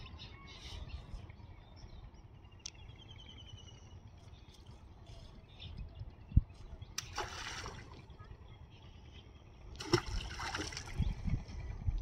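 Water splashing twice, each splash lasting about a second, the first just past halfway and the second near the end. A single sharp knock comes shortly before the first splash, over a low rumble.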